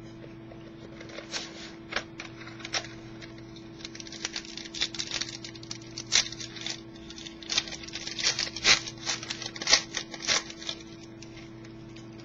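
Trading-card packaging and cards being opened and handled: irregular crinkles and clicks, busiest in the second half, over a steady low hum.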